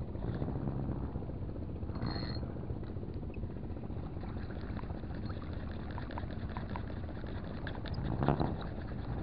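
Steady low rumble of a motorboat engine running, with faint small ticks from the spinning reel being wound. There are two brief louder noises, about two seconds in and near the end.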